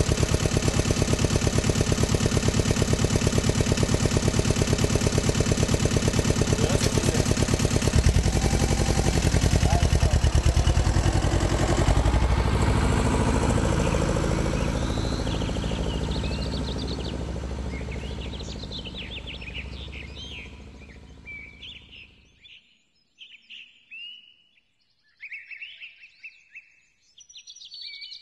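Yanmar YM1100D compact diesel tractor engine running as it drives past, loudest in the first half and then fading away. Birds chirp through the second half and are left alone near the end.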